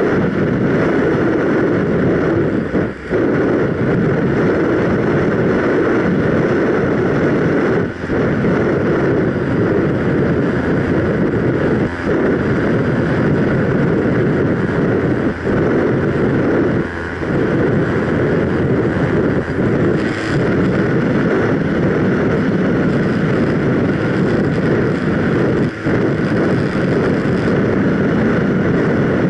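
Onboard noise of a ParkZone Radian Pro electric RC glider in flight: a steady loud rush of air past the airframe, dipping briefly every few seconds.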